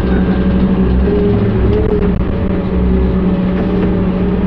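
Excavator's diesel engine running at a steady speed, heard from inside the operator's cab, with a faint wavering whine over the engine note.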